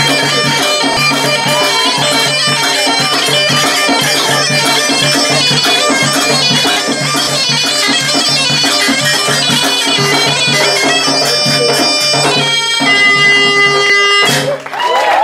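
Live Tunisian folk music: a mezoued (Tunisian bagpipe) plays a melody over its steady drone, backed by a hand drum. Near the end the piping holds one long high note, which cuts off just before the end.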